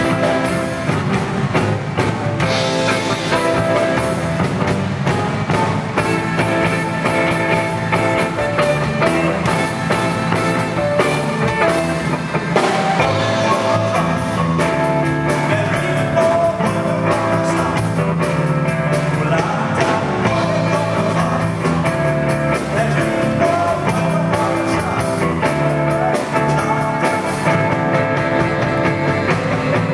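Live rock-and-roll band playing with drum kit and electric guitar, a tenor saxophone playing lead.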